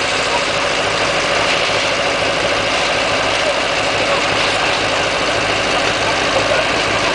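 Farm machine's engine running steadily at a constant speed, with an even mechanical din and a low pulsing throb.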